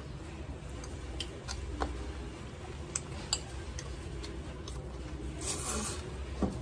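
Small, scattered clicks of a metal fork against a ceramic plate as noodles are lifted and twirled. Near the end comes a short hissy slurp as the noodles are sucked in, then a knock of the fork on the plate.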